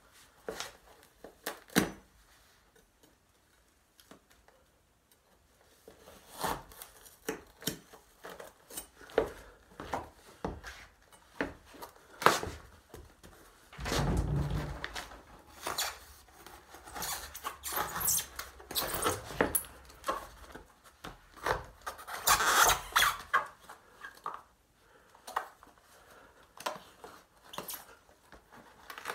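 Knife cutting and sawing through a sneaker, with the shoe and its cut pieces handled: a run of short, irregular scrapes, creaks and clicks. It goes almost quiet for a few seconds near the start, then gets busier, with denser scraping around the middle and again later.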